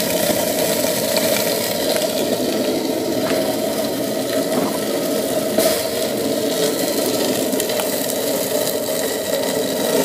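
Homemade waste-oil burner running with a steady, rough rumble, with a few faint clicks, as it burns oil contaminated with water and struggles to boil the water off.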